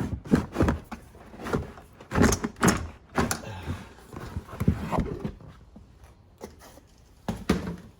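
Irregular knocks, clunks and scrapes of trim pieces and loose items being pulled out and handled in a car's rear cargo area, thickest in the first few seconds with a couple more knocks near the end.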